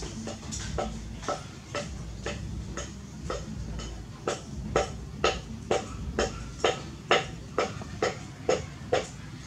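Steady rhythmic clicking, about two clicks a second, growing louder and sharper about four seconds in, over a low background rumble.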